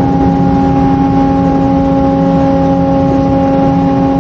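Ship's anchor windlass machinery running with a steady mechanical hum: several constant tones over a low rumble, no change in pitch.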